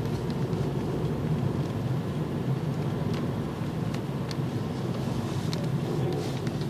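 Car driving, heard from inside the cabin: a steady low hum of engine and tyres with a few faint ticks.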